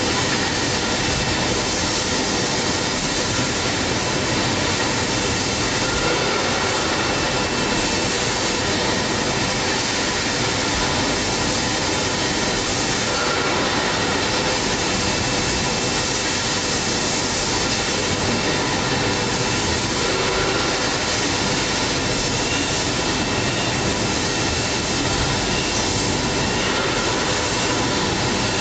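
Automatic bottle labeling machine and its conveyor running: a steady, unbroken mechanical noise with several faint steady hums in it.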